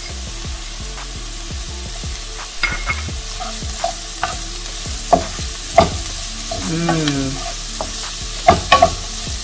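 Chopped onion and red bell pepper sizzling in a skillet while a wooden spoon stirs them, knocking and scraping against the pan from about a third of the way in. The sharpest knocks come near the end.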